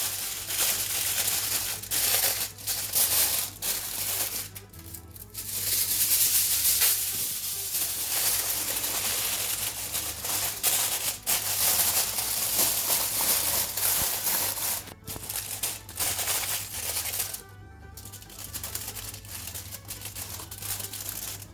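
Background music with a stepping bass line, over a steady hiss that fits food sizzling in a hot pan. The hiss drops out briefly twice, about five seconds in and again near eighteen seconds.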